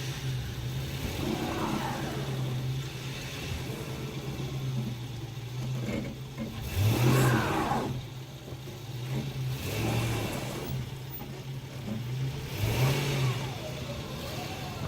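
Truck engine running, revved briefly three times, each rev rising and falling in pitch, as the truck is moved through snow.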